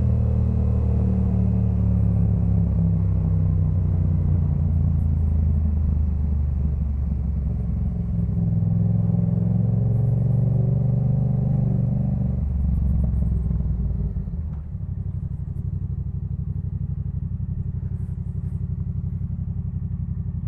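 Yamaha MT-07's parallel-twin engine through a Jeskap K4 full aftermarket exhaust, running under way with its pitch rising and falling. About two-thirds in it drops to a steadier, quieter running note.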